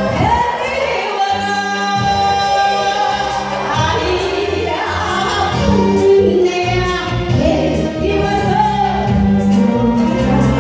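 A woman singing a Korean popular song live over amplified backing music, heard through a hall's loudspeakers.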